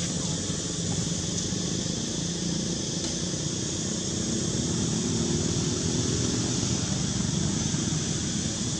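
Steady outdoor background noise: a low rumble that swells slightly around the middle, under a constant high hiss.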